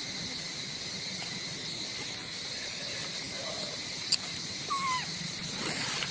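Steady high-pitched insect drone, with a sharp click about four seconds in, a brief chirp just under a second later and a short rustle near the end.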